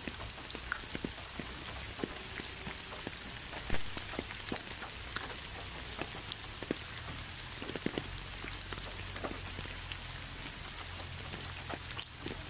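Steady rain falling, with scattered close drops ticking through the hiss; two drops stand out louder, one about four seconds in and one near the end.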